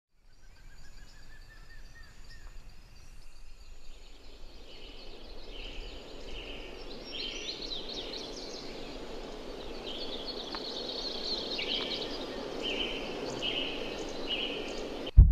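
Tropical rainforest ambience: a steady low hum of the forest that slowly grows louder, with birds giving repeated short, high calls. A sudden loud hit comes just before the end.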